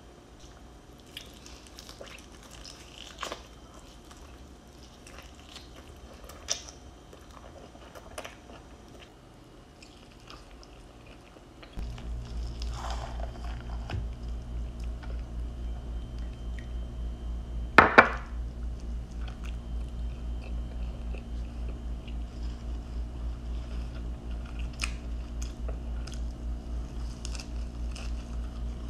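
Close-up eating sounds: a person chewing and crunching steamed chicken and fresh herbs, with small wet mouth clicks. From about twelve seconds in, a steady low hum with a fast pulse runs underneath, and there is one brief loud sound about eighteen seconds in.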